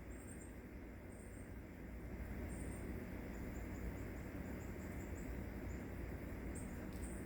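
Quiet outdoor background: a steady low rumble with faint, short, high-pitched chirps repeating about once a second.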